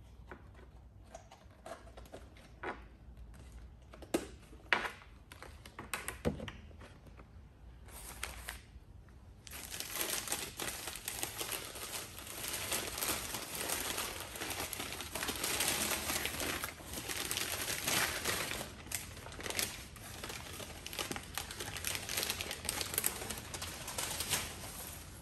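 Scattered clicks and taps of a film camera and its case being handled, then from about ten seconds in a long stretch of paper wrapping crinkling as a camera is unwrapped.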